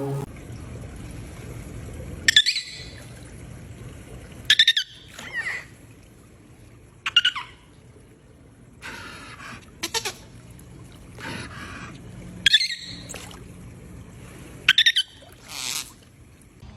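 Dolphin vocalizing: about ten short, high-pitched squeaking whistles, some gliding in pitch, coming every second or two over a steady low background.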